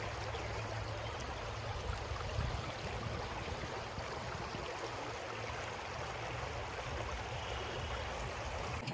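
Shallow, stony creek water running steadily over rocks, with a low steady rumble underneath.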